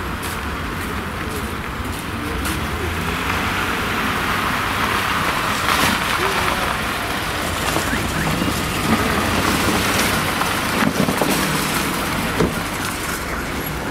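Steady motor-vehicle noise: a low engine rumble with a hiss over it and a few faint knocks.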